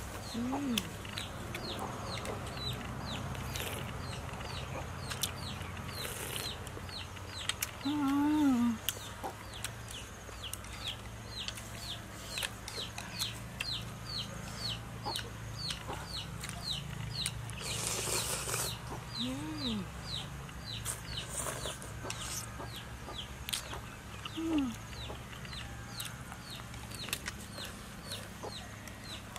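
Chickens clucking now and then, a few short calls spread through, over a steady run of quick high chirps about two a second. A brief hiss-like burst comes about eighteen seconds in.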